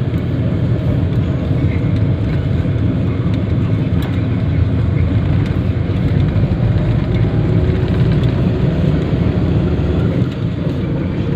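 Steady rumble of a moving road vehicle: engine and road noise heard from on board, even throughout.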